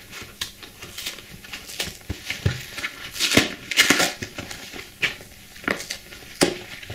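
Brown paper mailer envelope being torn open by hand: paper ripping and crinkling in irregular bursts, loudest around three to four seconds in.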